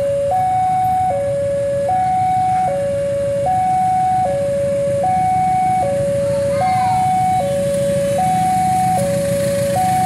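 Railway level-crossing warning alarm sounding, an electronic signal alternating steadily between two pitches, each held a little under a second, the warning that a train is approaching the crossing. A steady low rumble runs beneath it.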